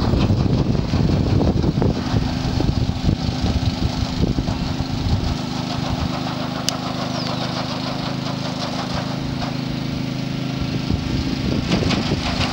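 A small engine running at a steady pitch, with wind rumbling on the microphone during the first couple of seconds and again near the end.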